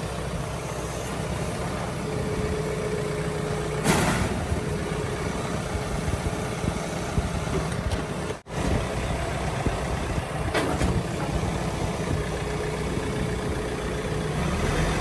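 Tractor engine running steadily, with a short clatter about four seconds in and another near the end.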